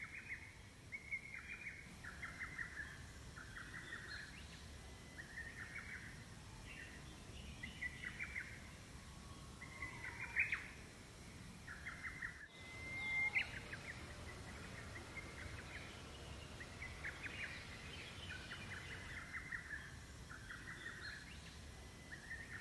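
A bird repeating short chirping calls, about one a second, with a louder rising call about halfway through, over faint outdoor background noise.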